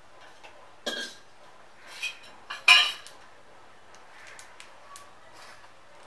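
Budgies on a wire cage making three short, harsh sounds about one, two and nearly three seconds in, the last the loudest, followed by a few faint clicks.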